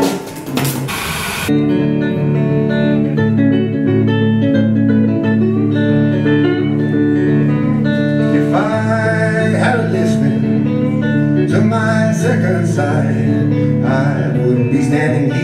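Live band music: drum kit and cymbals for the first second and a half, then an abrupt change to guitar playing held notes and chords. A man sings over the guitar from about halfway in.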